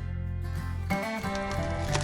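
Background music: an acoustic, country-style guitar track with a steady bass line.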